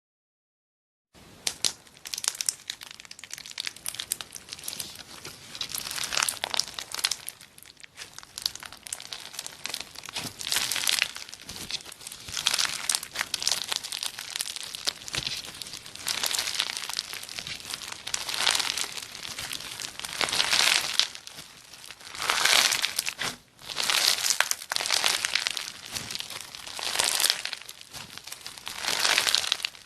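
Slime being squeezed and pressed by hand, giving a crackling, crinkling sound that swells and fades every second or two. It starts after about a second of silence.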